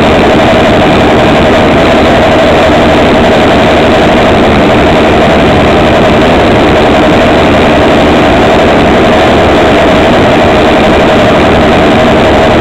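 Racing motorcycle engines idling steadily on a starting grid, the nearest and loudest being the Bimota YB4ei that carries the camera. The sound is loud and overloaded, with no revs or pulls away.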